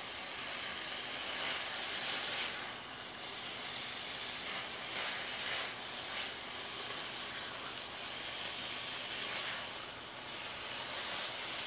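Chicken teriyaki pieces sizzling in a nonstick frying pan: a steady hiss that swells briefly several times as the pieces are turned and stirred with a spatula.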